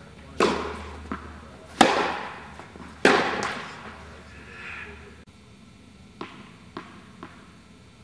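Tennis ball struck by rackets in a rally, three sharp hits about a second and a half apart, each ringing with a long echo in an indoor tennis hall, with lighter ball knocks between them and a few more light knocks later.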